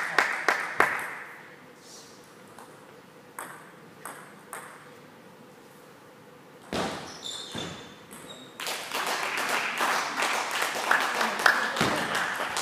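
Table tennis ball clicking sharply off bats and table, a few scattered ticks while play pauses between points, then a fast run of strikes during a rally in the second half over a steady background of hall noise.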